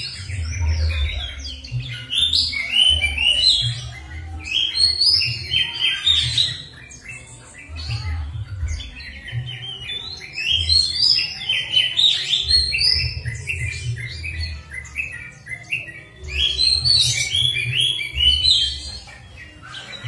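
Songbird singing in loud bouts of quick chirps and whistled phrases, dropping away briefly about six and sixteen seconds in, over a low rumble that comes and goes.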